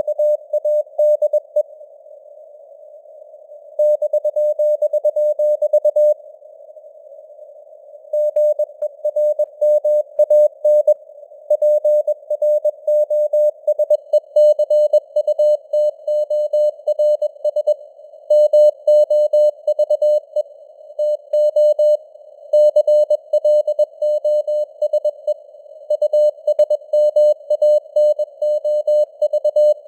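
Morse code (CW) sent at 21 words per minute as a single mid-pitched keyed beep, over a narrow band of simulated radio hiss with the signal strength fading up and down (QSB). The keying stops twice for a second or two, about two seconds in and again around six seconds in, leaving only the hiss.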